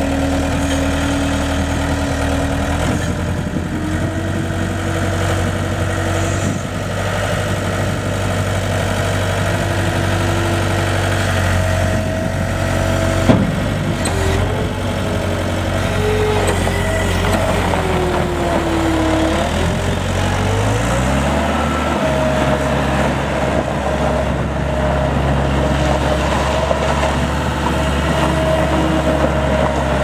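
GEHL 5635 SX skid steer loader's diesel engine running steadily as the machine drives and turns on gravel, with shifting whine over the engine note. Engine speed rises about two-thirds of the way through, and a single sharp clunk is heard about 13 seconds in.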